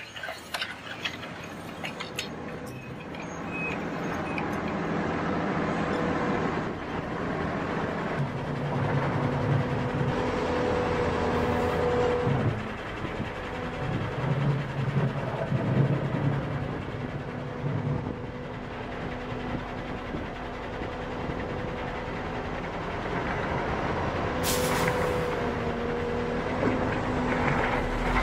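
Heavy diesel machinery running, with a steady whine that swells and fades. A few sharp clicks come in the first two seconds, and a brief hiss comes near the end.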